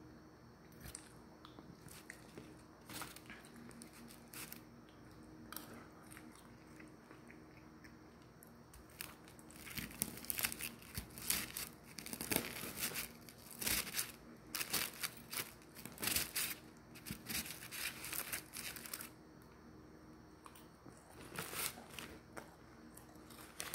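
Biting and chewing a crispy deep-fried chicken cutlet with a crumbly breaded crust. Scattered light crackles give way to a dense run of loud crisp crunches through the middle, then a few more crunches near the end.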